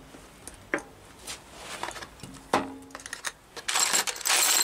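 Light metallic clicks and taps of metal engine parts being handled on the engine block, a few ringing briefly. Near the end a loud rough hissing or scrubbing noise starts.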